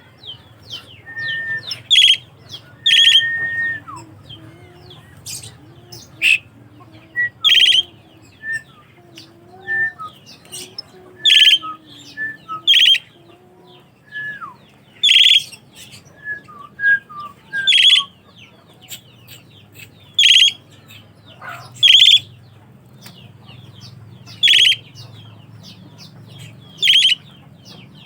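Asian pied starling (jalak suren) calling: short, loud calls repeated every second or two, with fainter thin whistled notes between them.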